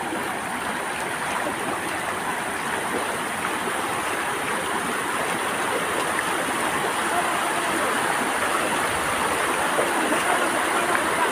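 Muddy floodwater rushing steadily across a submerged road.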